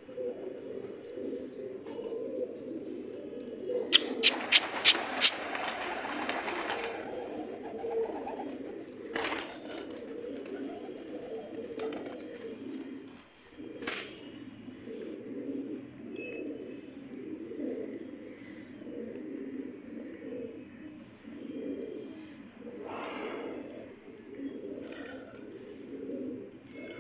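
A flock of domestic pigeons cooing, a low, continuous pulsing murmur of many birds. About four seconds in, five sharp claps in quick succession are the loudest sound, followed by a brief rustle; a few single clicks come later.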